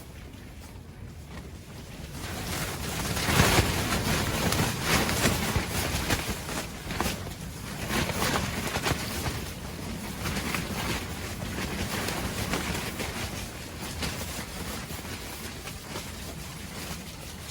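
Strong gusty wind, swelling sharply about two seconds in and then blowing in uneven gusts that slowly ease, with wind buffeting the microphone.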